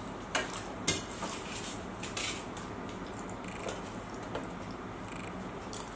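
Light clatter of tableware and food containers being handled while eating, with a couple of sharp clicks in the first second and a short rustle a little after.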